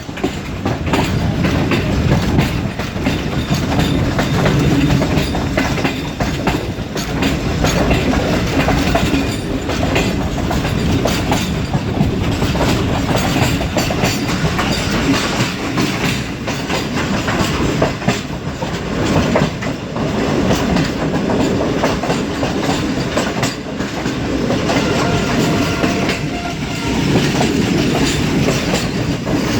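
Shah Hussain Express coaches running over the tracks: a continuous rumble with rapid, irregular clickety-clack of wheels over rail joints and junction points.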